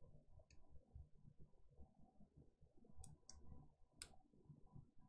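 Near silence broken by a few faint, sharp clicks from a small plastic zip bag of resin diamond-painting drills being handled: one about half a second in, two close together around three seconds in, and a stronger one about four seconds in.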